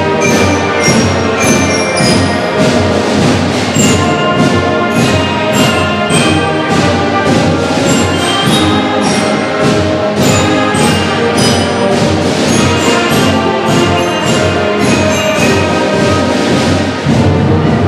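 School concert band playing: brass led by sousaphones, trumpets and trombones over bass drum, snare and tenor drums keeping a steady beat.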